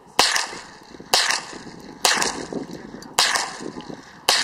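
Ruger 10/22 semi-automatic .22 rifle fired five times at a steady pace of about one shot a second. Each shot is a sharp crack followed by a short decaying echo.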